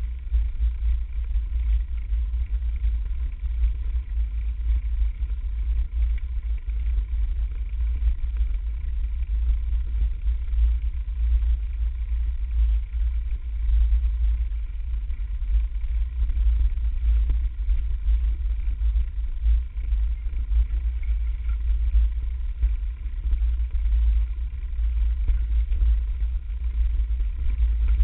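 Wind buffeting and rumbling on the microphone of a bike-mounted camera while riding a mountain bike down a dirt trail, with a steady, wavering low roar.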